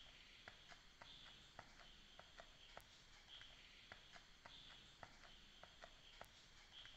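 Near silence: faint outdoor ambience, with a soft high chirp repeating about once a second and scattered light clicks.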